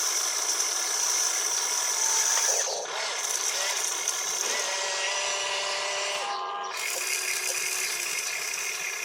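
Small electric motors and gearboxes of RC construction vehicles running, a continuous mechanical whine with shifting tones and a high tone that drops out about three seconds in.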